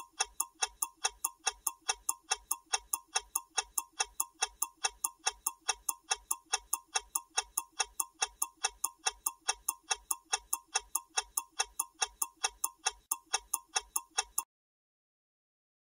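Countdown-timer ticking sound effect: steady clock-like ticks, about three a second, that stop abruptly about a second before the end.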